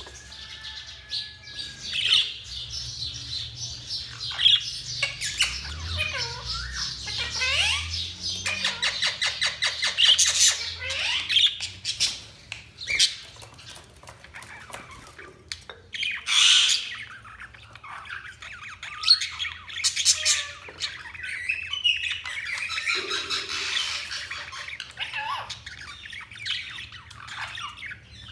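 Budgerigars chattering and warbling without pause, broken by loud sharp squawks, with a run of rapid clicking chatter about a third of the way in.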